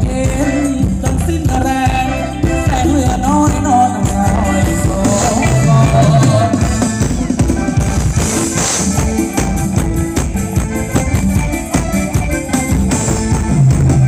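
Loud live band playing Thai ramwong dance music: a singer over a steady, driving drum beat.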